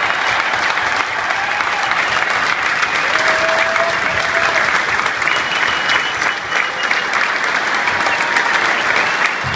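Stadium crowd of football supporters applauding, a dense, steady clapping that holds at the same level throughout.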